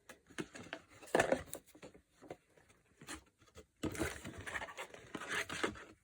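Hands handling small items, probably the blind-box packaging and keychain: irregular rustling and scratching with light clicks, in a short burst about a second in and a longer stretch from about four seconds in.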